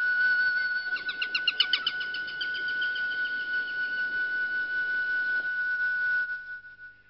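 Flute music holding one long high note. About a second in, a rapid fluttering trill lasts for a second or so. The note fades out near the end.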